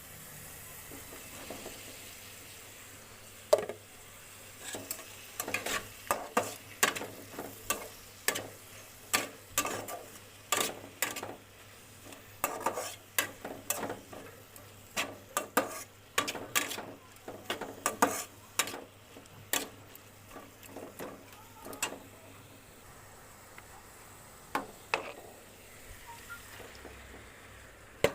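A utensil stirring curry in a cooking pot, scraping and knocking against the pan in irregular strokes about one or two a second, over a faint sizzle of frying. The strokes thin out about three quarters of the way through, with a couple more near the end.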